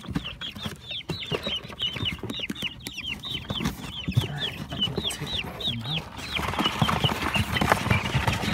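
Young chickens peeping steadily: high, falling cheeps, several a second. Under them are bumps and rustling from handling, and the rustling grows louder in the last two seconds.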